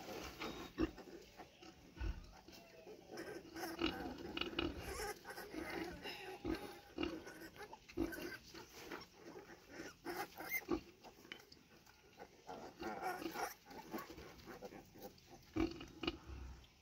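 A nursing sow and her suckling piglets: an irregular jumble of small grunts and squeaks with many short clicks.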